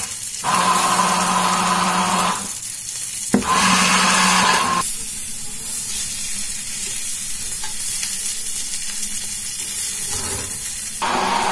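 Handheld stick blender running in two bursts, blending salmorejo as olive oil is poured in, and stopping about five seconds in. A bluefin tuna steak sizzles in a frying pan throughout and is heard alone once the blender stops.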